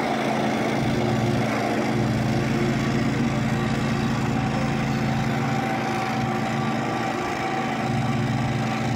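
Engine of a remote-controlled tracked slope mower running steadily as the machine drives across a grass slope and cuts.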